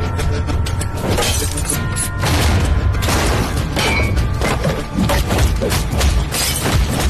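Action-trailer soundtrack: a quick run of sharp hits and crashing, shattering effects over a heavy, steady low rumble of score, the hits coming thicker in the second half.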